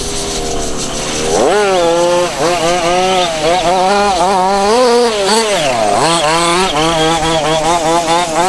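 Small two-stroke petrol engine of a 1:5 scale RC off-road buggy racing, its pitch climbing sharply about a second and a half in, then rising and falling with the throttle, with a brief dip near six seconds before it climbs again.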